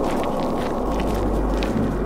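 Footsteps rustling through dry fallen leaves, with a deep low rumble coming in about a second in.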